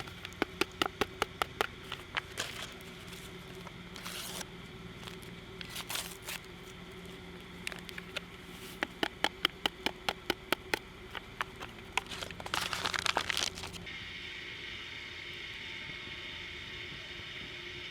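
Crinkling and rustling of a hot cocoa mix packet being handled and opened, with two runs of quick light clicks, about five a second, and a longer rustle about thirteen seconds in.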